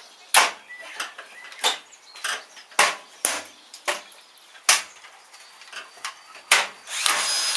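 Sharp knocks and clicks about once or twice a second as washing-machine parts and screws are handled. A power drill runs briefly near the end while screws are driven out.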